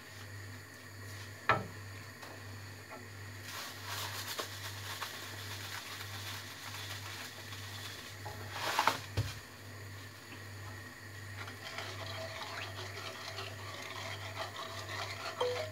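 A wooden spatula stirring and scraping in a frying pan about eight to nine seconds in, ending with a knock, over a low pulsing hum and an earlier single click.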